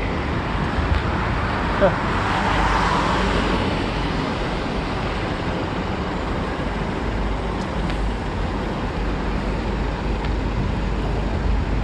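Road traffic noise, with a vehicle passing about two to three seconds in.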